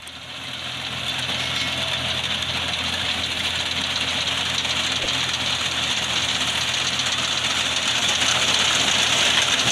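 Tractor with a front-mounted reaper binder running while cutting green fodder: a steady, loud mechanical noise over the engine's low hum, swelling up over about the first second.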